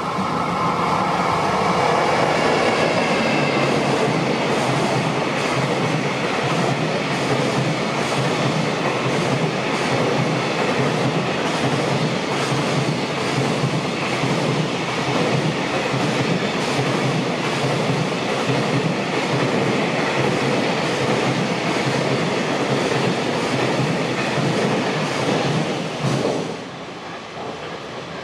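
JR Freight EF210 electric locomotive and its long train of container wagons passing close by, the wheels on the rails making a steady loud rumble and clatter, with a whine falling slightly in pitch as the locomotive goes by in the first few seconds. The noise drops sharply as the last wagon passes, about two seconds before the end.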